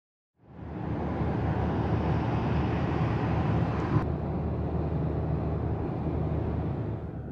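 Steady road noise heard inside a car cruising on a highway: low tyre and engine rumble under a hiss of wind and road. It fades in at the start, and its tone shifts abruptly about four seconds in.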